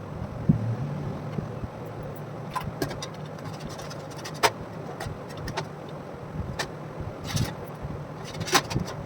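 A steady low hum with several short, sharp clicks and taps scattered a second or so apart, like small parts being handled.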